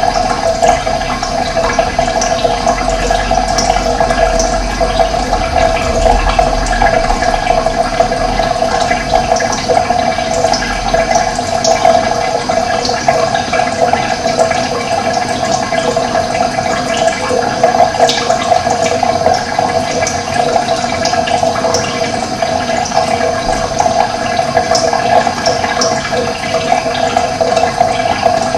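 Running water flowing steadily, a continuous rushing with a strong mid-pitched gurgle, dotted with brief high ticks.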